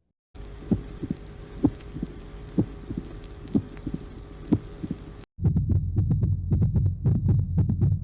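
Auscultated heart sounds: a steady heartbeat, one low thump about every second over a faint hum. About five seconds in it cuts to a second, louder recording of much faster, rougher heart sounds.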